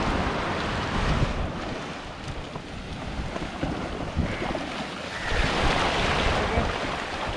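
Small surf washing up onto a sandy beach, rising and falling, with wind rumbling on the microphone.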